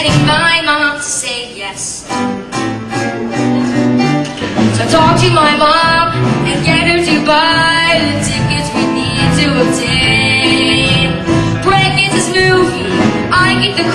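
Live musical-theatre song: young voices singing held, melodic lines over a continuous instrumental accompaniment.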